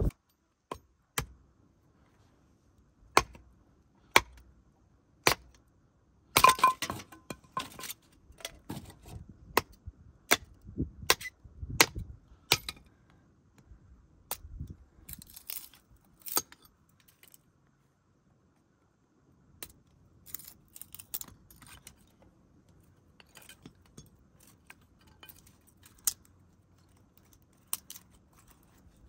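Hatchet splitting firewood into kindling: sharp knocks of steel on wood, single strikes about a second apart at first, then a quick run of blows. Later come softer scraping and a few light clicks as the split pieces are worked.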